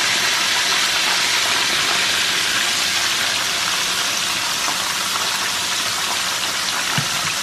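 A whole red snapper frying in a pan of hot oil: a steady sizzle and bubbling hiss, with a soft knock near the end.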